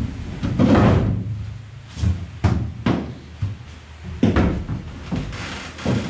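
A series of hollow knocks and thumps, about seven, the loudest about a second in, as a plywood floor panel is set down and shuffled into place on an aluminium boat hull's frames. Steady heavy rain hisses underneath.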